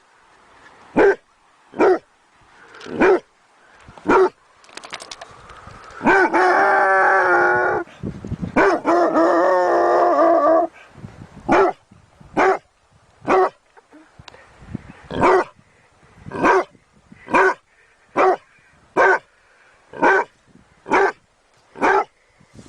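A dog barking in single sharp barks about once a second, with two drawn-out wavering calls of about two seconds each in the middle.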